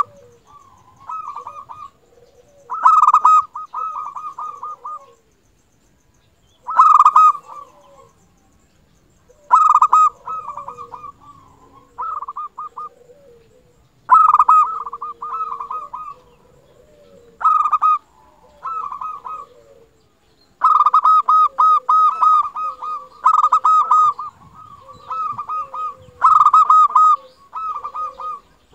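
Zebra dove (perkutut) singing: bouts of rapid staccato cooing, each one to two seconds long, repeated every few seconds, with the bouts coming closer together in the second half.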